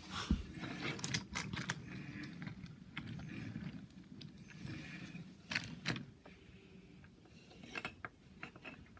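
Toy subway car rolling along wooden toy train track, pushed by hand: a low rolling rumble with several sharp clicks, fading about six seconds in as the car comes to rest.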